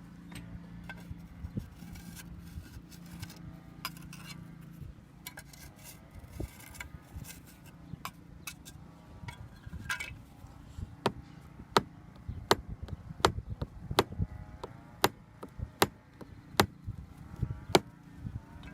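Repeated sharp hammer strikes, scattered at first, then about a second in from the halfway point settling into a steady rhythm of roughly one and a half blows a second.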